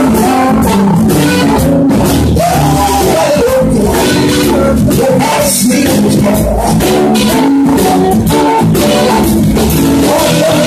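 Live blues band at full volume: a woman singing into a microphone over electric guitars and a drum kit.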